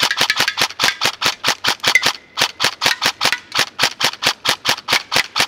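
MK18-style electric airsoft rifle (AEG) firing rapid single shots at about six a second, each a sharp crack, in a near-continuous string that stops at the very end.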